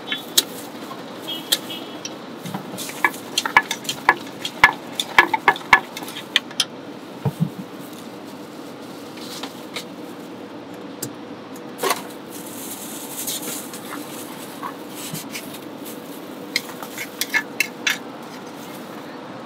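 Wooden pestle knocking and scraping in a large clay mortar as a salad is pounded and tossed: sharp knocks in irregular clusters, thickest in the first half, with a few more near the end, over a steady background hum.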